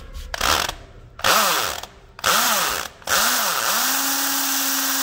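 Electric drill with a triangle-shank multi-purpose carbide bit boring into a concrete floor. It is squeezed in three short bursts, its pitch rising and falling with each, then held at a steady speed for about two seconds, the bit grinding in the concrete.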